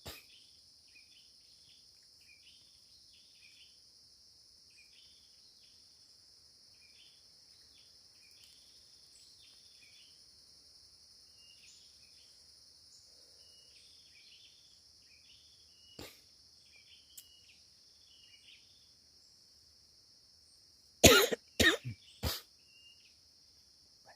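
Steady high drone of forest insects with faint chirps, then near the end a person coughs about four times in quick succession.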